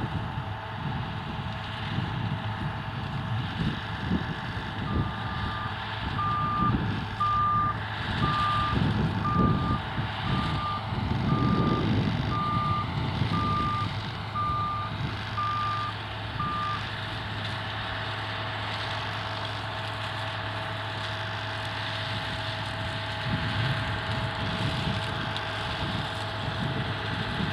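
Reversing alarm on harvest machinery beeping about once a second, a dozen times, then stopping, over the steady running of heavy farm-machinery engines.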